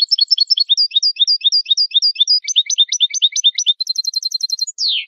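European goldfinch singing in the Spanish malagueño song style: fast runs of repeated twittering notes that switch to a new phrase every second or two. The song ends in a quick trill and a falling slur just before the end.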